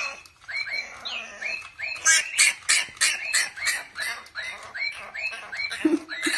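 French bulldog puppy yapping in a rapid series of short, high-pitched barks, about three a second.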